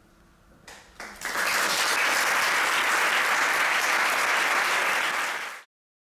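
Audience applauding at the end of a dance performance. A few single claps about a second in quickly swell into full, steady applause, which cuts off suddenly near the end.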